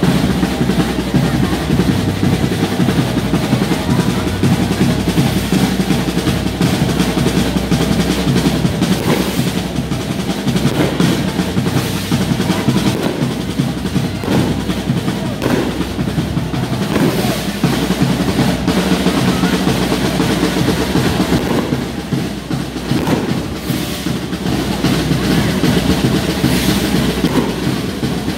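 A drum group playing a fast, continuous rolling beat on snare and bass drums, the street-drum accompaniment to a gigantona dance.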